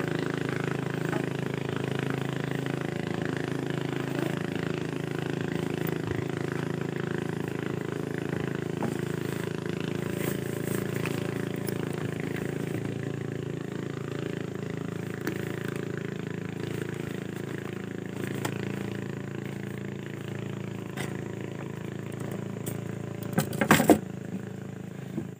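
A small boat engine running steadily and slowly fading. Near the end there is a brief burst of sharp knocks, the loudest moment.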